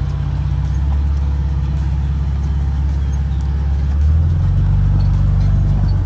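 Motor vehicle running with a loud, steady low rumble whose pitch shifts downward about four seconds in.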